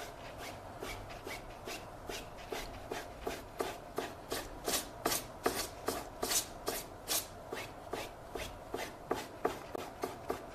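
A 1-inch oil-painting brush loaded with blue paint being tapped repeatedly against a canvas, a steady run of short taps about three to four a second, loudest in the middle.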